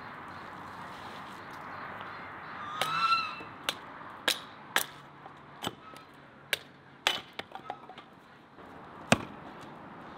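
A short honking bird call about three seconds in, followed by a run of sharp knocks at uneven intervals, over a steady background hiss.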